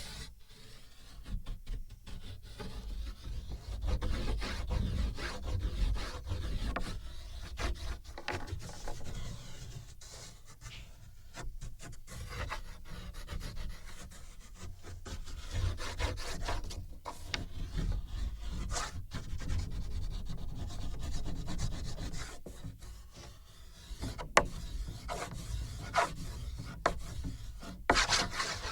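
Drawing strokes rubbing and scraping across a wooden board, picked up by contact sensors fixed to the board: irregular strokes with a low rumble, and a sharp tap about 24 seconds in.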